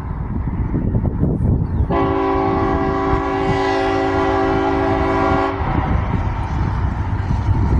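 Diesel locomotive air horn sounding one long blast of a few notes at once, lasting about three and a half seconds and starting about two seconds in, over the low rumble of the approaching train.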